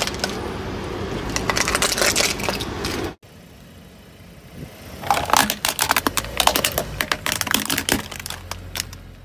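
A car tyre crushing objects on asphalt. For the first three seconds there is a dense crunching and crackling. After a short drop, a red plastic toy car breaks under the tyre in many sharp cracks from about five to eight seconds in, which die away near the end.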